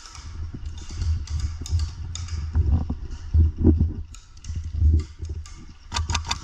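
Camera-mounted microphone rubbing and bumping as the wearer moves: uneven low thumps and rustle with scattered clicks. Near the end comes a quick run of sharp cracks, about five a second, typical of an airsoft rifle firing.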